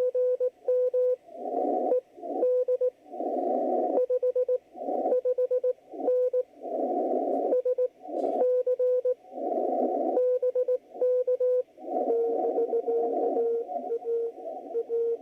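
Morse code (CW) signal received on an HF ham radio: a tone of about 500 Hz keyed in dots and dashes, played through a noise-reducing speaker. In the pauses between characters, bursts of band-limited hiss surge in and drop out. About twelve seconds in, the tone drops slightly lower in pitch and the hiss behind it becomes steady.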